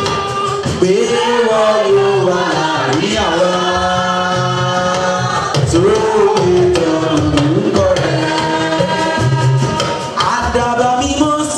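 Women's choir singing a worship song into microphones through a PA, with a lead voice over the group and instrumental accompaniment keeping a steady beat.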